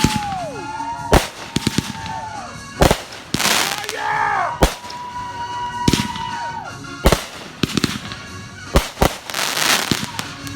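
Consumer fireworks going off: about seven sharp bangs, with whistling tones that hold and then drop in pitch, and crackling between the reports.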